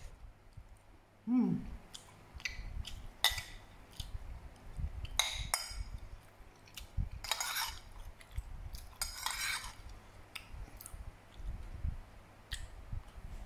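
Metal spoon clinking and scraping against a plate of food during eating, in several separate bouts. A short falling tone about a second in is the loudest sound.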